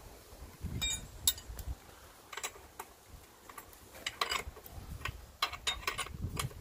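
Metallic clicking and clinking from a wrench turning the top nut of a car's front strut held in spring compressors, in irregular bunches of sharp clicks, with a few dull knocks of the strut against the cardboard.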